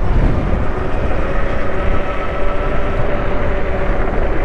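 Wind rumbling on the microphone of a moving electric moped, with a steady electric-motor whine over it.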